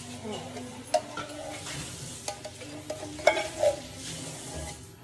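Pot of curry shrimp in coconut milk sizzling on the stove while being stirred with a spoon: a steady hiss with a few sharp knocks of the spoon against the pot, the loudest about two-thirds of the way through.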